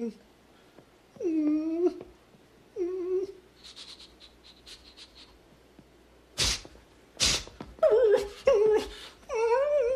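Dog whimpering and whining in short, wavering cries, with a few seconds of faint scratchy rustling in the middle and two sharp noisy huffs before the whining picks up again.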